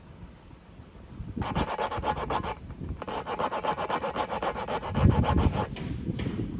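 Rapid rasping strokes of a tire repair rasp tool, scraping in quick succession in two runs with a short pause between them, typical of reaming out a tire puncture before plugging it.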